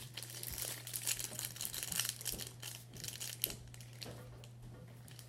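Foil Pokémon booster pack wrapper crinkling and tearing as it is worked open by hand with some difficulty, in irregular crackles that thin out toward the end.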